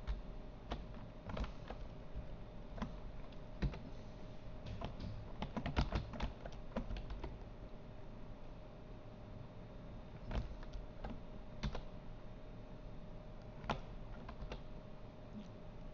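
Scattered clicks of a computer keyboard and mouse, with a cluster of quick taps about six seconds in, over a faint steady hum.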